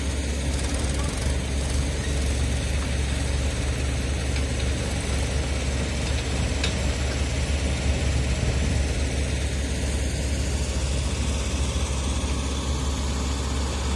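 Farm tractor's diesel engine running steadily as a low drone while it pulls a trolley loaded with soil.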